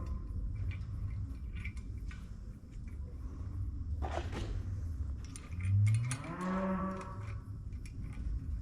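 A cow mooing once, a long call that rises in pitch, about two-thirds of the way through. A single sharp knock comes a little after the midpoint, over a steady low rumble.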